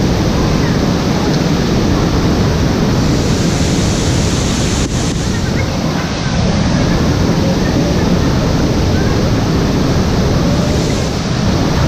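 Waterfall rushing loudly and steadily, a constant deep roar of falling water.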